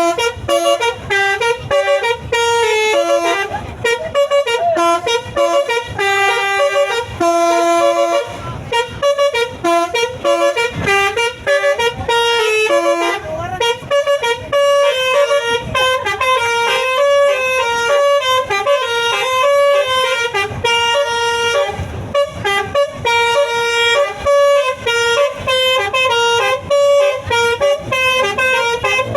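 A bus telolet horn, a set of musical air horns, playing a fast melody. Several horn tones sound together and change pitch several times a second, without a break.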